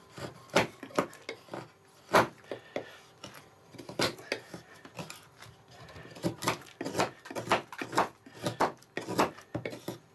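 Steel knife blade shaving curls off a block of alder wood, each stroke a short, sharp slicing scrape. The strokes come irregularly at first, then faster, about two a second, over the last few seconds.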